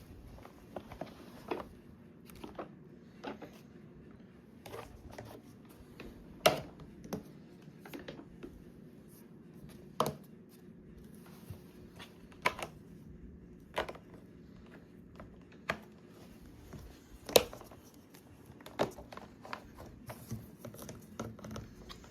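Bissell Powerforce Helix upright vacuum being handled with its motor off: irregular sharp clicks and knocks of its hard plastic parts, about one every second or two, a few of them louder.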